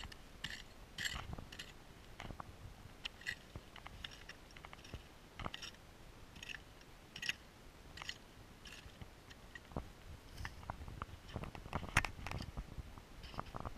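Short hand pick hacking and scraping into rocky, gravelly dirt, a crunch of soil and small stones roughly once a second, with one louder strike near the end.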